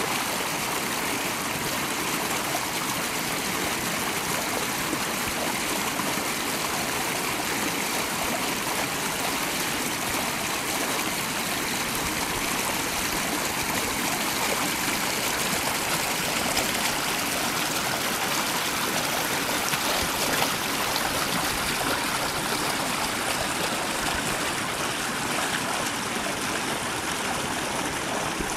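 Mountain stream rushing over rocks and small cascades, a steady even rush of water.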